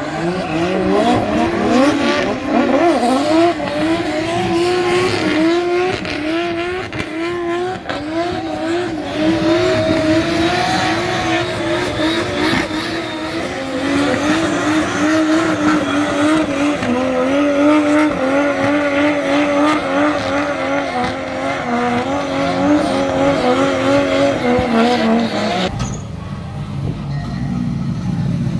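Nissan GT-R R35 drift car with a swapped turbocharged RB34DET inline-six, drifting hard: the engine runs high with its pitch wavering up and down as the throttle is worked, over tyre squeal. Near the end the sound drops suddenly to a quieter low engine rumble as the car rolls slowly.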